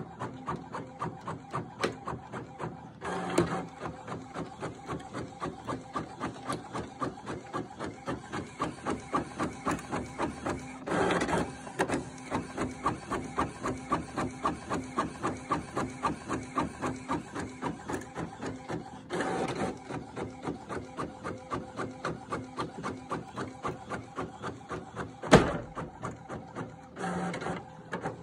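Epson L1455 inkjet printer printing: the print head carriage shuttles back and forth in quick, even strokes about three a second. Roughly every eight seconds a longer stretch of mechanism noise breaks in as the next sheet is fed, and a single sharp click sounds near the end.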